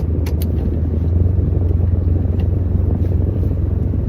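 Steady low rumble of a vehicle running, with a few faint ticks about half a second in.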